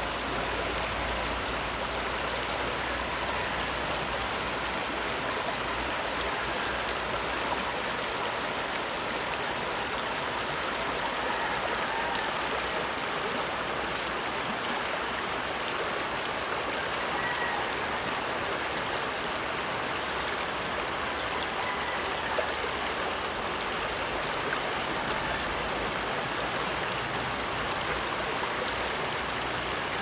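Shallow, fast river rushing over and around boulders in small rapids: a steady, even hiss of flowing water that neither swells nor breaks off.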